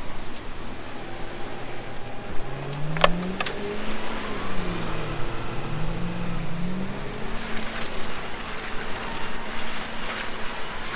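Off-road 4x4 engine revving as it drives through mud and snow: the pitch climbs, falls away, then climbs again. Two sharp clicks come about three seconds in.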